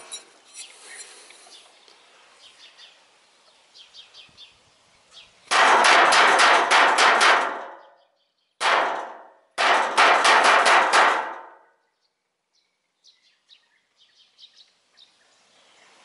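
A rusty sheet of scrap metal beaten rapidly with a metal rod: a loud, harsh clanging rattle in three bouts, the first and last about two seconds long with a short one between, made to scare golden bee-eaters off the beehives.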